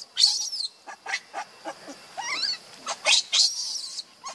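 Baby macaque crying: a run of short, high-pitched squeals and screams, some sliding up and down in pitch. The loudest come right at the start and again about three seconds in.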